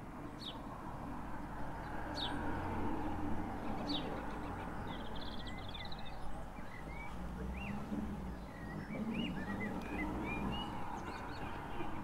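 Small songbirds chirping, with short high calls every second or two and a brief rapid trill about five seconds in, over a steady low background rumble.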